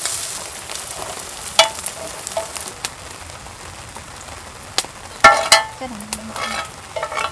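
Steady rain hiss that eases off over a few seconds. Scattered sharp clicks and a few short metallic clinks of spoons against metal bowls sound over it.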